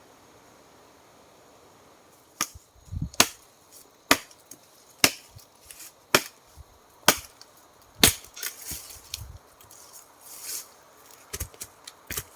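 Wood being chopped: a run of sharp chops about one a second, then rustling and a few lighter knocks near the end.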